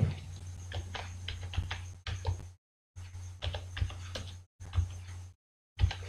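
Computer keyboard typing: a quick run of irregular keystrokes over a low electrical hum, with the sound cutting out completely in short gaps between runs.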